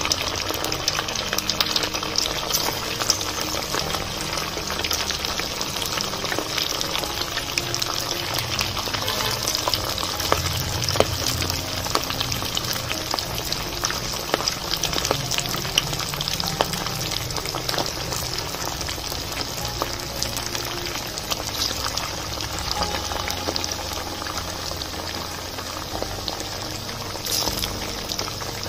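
Hot oil sizzling and crackling steadily around pieces of rice-and-milk dough deep-frying in a kadai.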